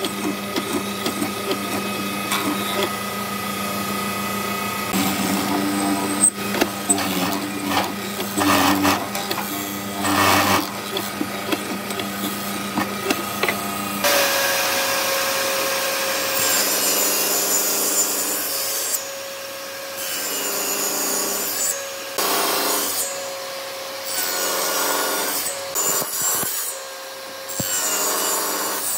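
A benchtop hollow-chisel mortiser runs with a steady motor hum, knocking as its square chisel plunges into a pine board. About halfway through, a table saw takes over, its spinning blade making several cuts in pine, the noise swelling and easing every couple of seconds.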